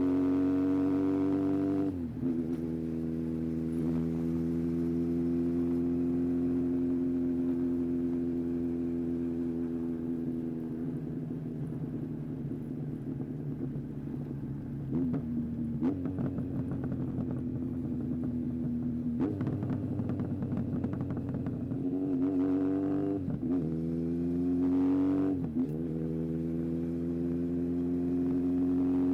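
Yamaha XJR1300's air-cooled inline-four engine running, its pitch mostly steady, with several quick drops and climbs in engine speed and a rougher-sounding stretch in the middle.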